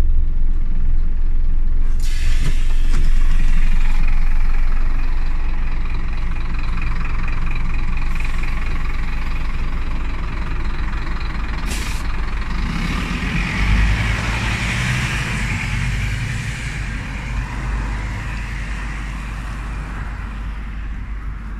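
Scania OmniLink CK270UB city bus running with a steady low rumble. A hiss sets in about two seconds in, there is a single click near the middle, and the engine noise swells briefly a little after that.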